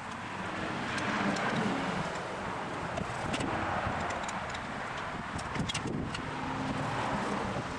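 Steel pliers clink lightly against the newly cast brass part and scrape in the foundry sand as it is picked out of the shaken-out mold, a few short ticks about three and six seconds in. Under it, a rushing outdoor background noise swells and fades twice.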